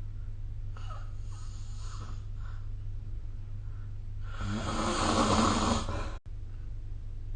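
A sleeping person snoring: faint breaths about a second in, then one loud snore about four seconds in that lasts about a second and a half. A steady low hum sits underneath.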